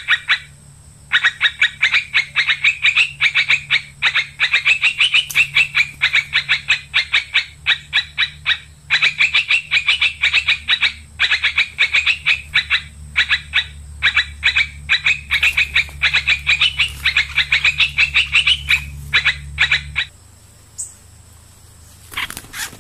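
An animal's rapid chattering call, about six sharp notes a second in long runs with short breaks, over a low steady hum that stops shortly before the end.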